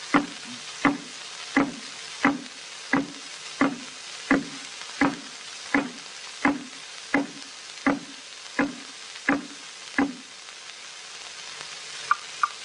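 Cartoon marching footstep effects: evenly spaced thuds, each with a short click, about three every two seconds, some fifteen in all, stopping about ten seconds in. They sit over the constant crackle and hiss of an early optical film soundtrack. Two short high blips come near the end.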